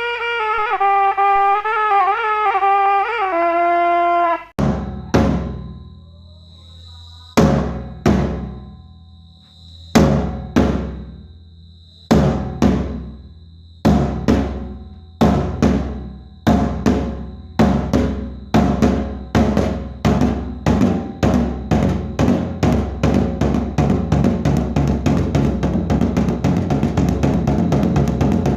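A wind instrument plays a short stepping phrase that stops about four seconds in. A drum then takes over with slow single strokes that come faster and faster until they run together into a rapid roll. A thin high ringing tone sounds over the first slow strokes.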